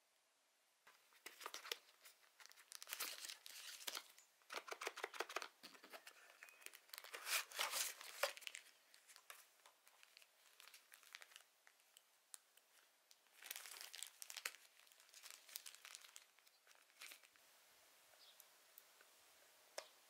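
Crinkling and rustling of plastic wrapping and cardboard packaging as camera accessories are handled and unpacked, in irregular bursts from about a second in. The bursts die down near the end, and there is a single sharp click just before the end.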